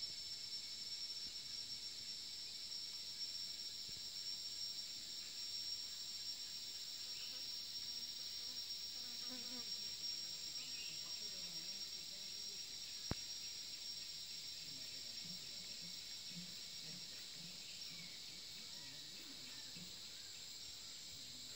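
Steady, high-pitched chorus of forest insects, unbroken throughout, with one sharp click a little past halfway.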